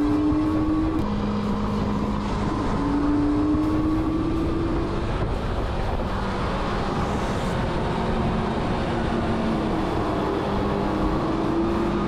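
Riding a shared electric scooter: a steady rush of wind and road noise, with a low motor hum that climbs slowly in pitch and drops back several times.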